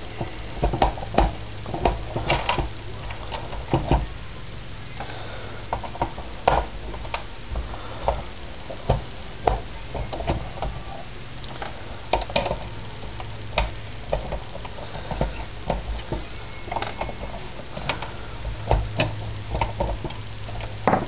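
Irregular clicks and light taps of a T-handle screwdriver backing screws out of a plastic interior console as the parts are handled, over a steady low hum.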